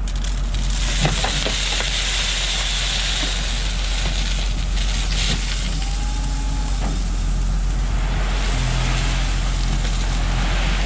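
Skid steer engine running steadily while a bucket of rock is dumped, with a continuous hissing rush of stone sliding out over the engine drone.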